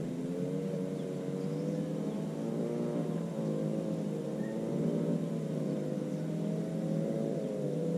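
An engine droning steadily, its pitch wavering slightly up and down.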